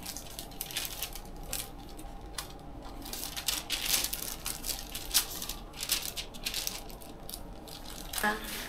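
Tattoo stencil paper crinkling and rustling in scattered sharp crackles as it is pressed and smoothed onto skin.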